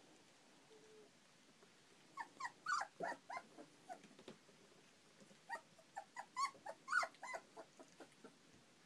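Four-week-old European basset hound puppies giving short high-pitched cries while they wrestle in play. The cries come in two quick bouts of several each, one about two seconds in and another from about five and a half seconds.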